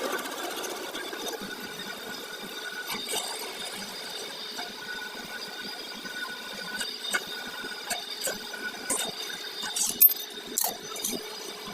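Workshop sounds: scattered metallic clicks and knocks over a steady machine hum. The knocks become more frequent in the second half, with one sharp knock about ten seconds in.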